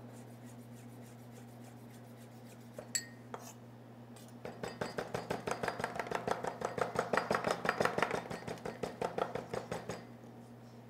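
A chef's knife chopping fresh tarragon and thyme on a wooden cutting board. A few scattered taps come first, then about four seconds in a fast, even run of knife knocks starts, about seven a second, and stops near the end.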